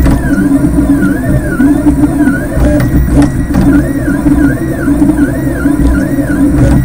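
3D printer's stepper motors whining while printing, the pitch rising and falling in smooth swoops about twice a second over a steady hum. There are a couple of sharp clicks about three seconds in.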